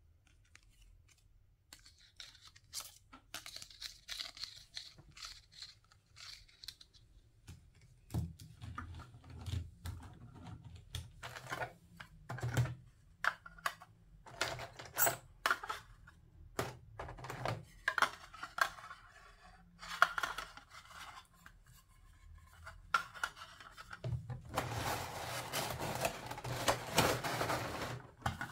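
Hard plastic toy-food pieces clicking and tapping together as they are handled and pulled out of a thin clear plastic blister tray. The taps come scattered at first, then quicker, and there are a few seconds of steady plastic rustling near the end.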